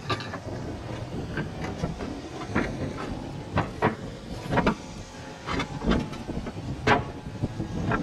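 Irregular sharp knocks and clinks of clay roof tiles and a hand tool being worked into place, about a dozen spread unevenly, over a steady background rumble.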